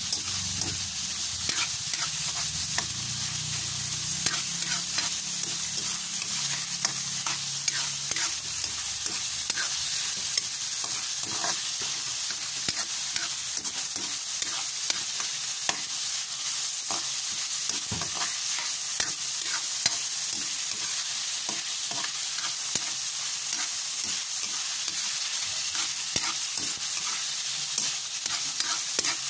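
Diced chicken sizzling in hot oil in a wok, with a steady hiss, while a spatula stirs and scrapes the pan, giving many scattered clicks and taps.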